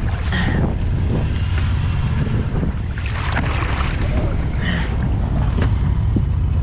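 A shot duck is grabbed from the water by hand and hauled into a boat, with a few brief splashes of water. Underneath is a steady low rumble of wind on the microphone.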